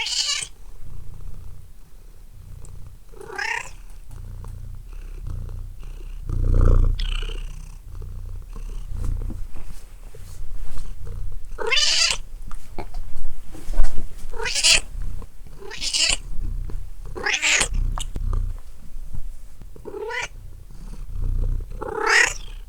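Domestic cat meowing repeatedly, about eight separate meows, most of them bunched in the second half. An uneven low rumble runs underneath and is loudest about six seconds in.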